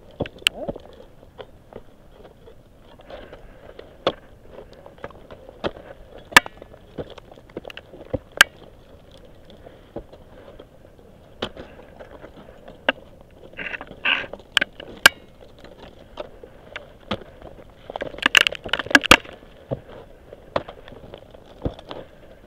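Ice axe picks and crampons striking and biting into hard snow and rime on a steep gully: sharp single impacts every second or two, with two flurries of crunching and scraping, one around the middle and a louder one near the end.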